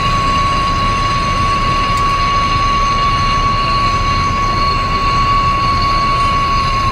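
Steady machine noise: a constant high whine over an even hiss and low rumble.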